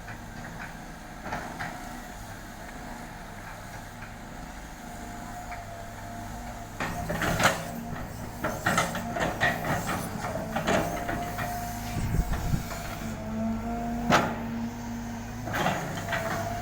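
Caterpillar excavator's diesel engine running with a steady whine. From about seven seconds in it gets louder, with irregular clanks and knocks as the machine works the soil.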